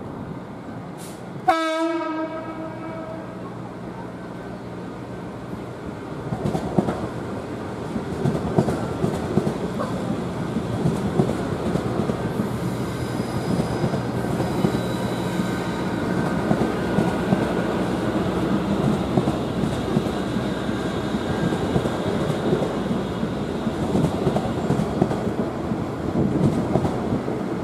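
A short train horn blast about a second and a half in, then a Siemens Class 350 Desiro electric multiple unit running past, its wheels rumbling and clicking over the track, growing louder from about six seconds in.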